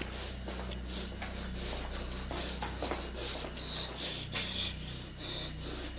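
Faint rubbing and scuffing over a low steady hum, with a thin high tone that comes in about three seconds in and stops a couple of seconds later.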